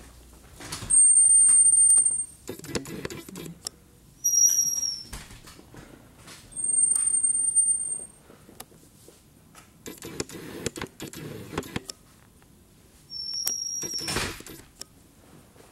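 Four high, thin squeaks, each about a second long, with scattered knocks and clicks between them.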